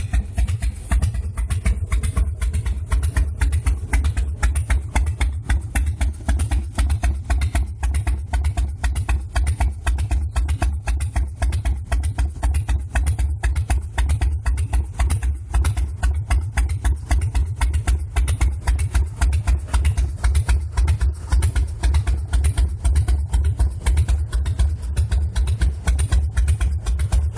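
Harley-Davidson Fat Boy's air-cooled V-twin engine idling steadily, a loud, even train of low exhaust pulses with no revving. It runs after a service that follows years of abandonment.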